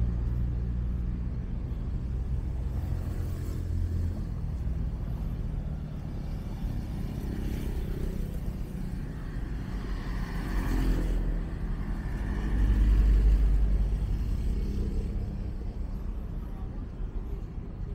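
Road traffic passing: cars and other vehicles go by with a low engine and tyre rumble that swells as each one passes, loudest in the first few seconds and again past the middle.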